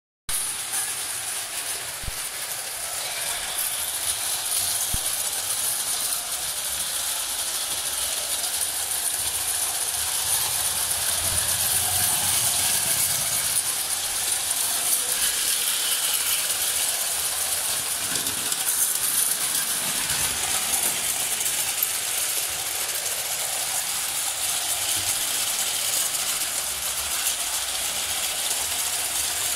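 Carette gauge 1 tinplate live-steam locomotive with oscillating cylinders running on its track: a steady hiss of steam with the mechanical running noise of the tin loco, tender and wagon on the rails.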